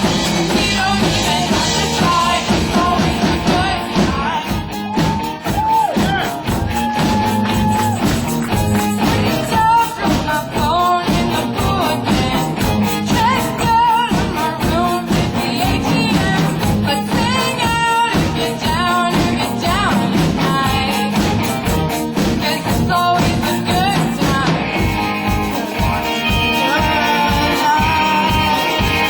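Rock-and-roll song with singing over a steady drum beat.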